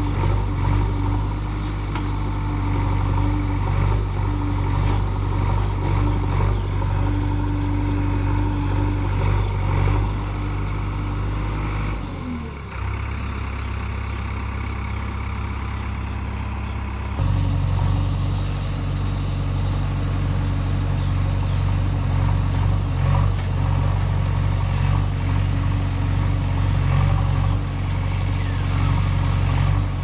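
JCB 3DX Eco backhoe loader's diesel engine running steadily under working load. About twelve seconds in, its note drops lower for around five seconds, then comes back up to the earlier pitch.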